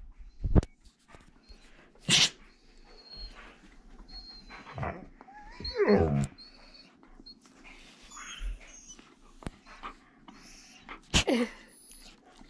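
Siberian husky giving short whining grumbles that fall in pitch, one about halfway through and another near the end, between a few soft rustles and knocks.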